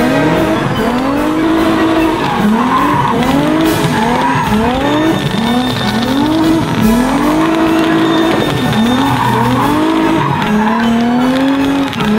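Car engine revved again and again in rising, falling bursts about once a second, over the hiss of tyres skidding. Fireworks crackle in the background.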